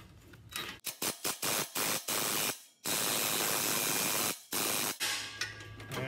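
Ryobi cordless impact wrench hammering on a rusted exhaust flex-pipe flange bolt: several short bursts, then one longer run of about a second and a half, then another short burst.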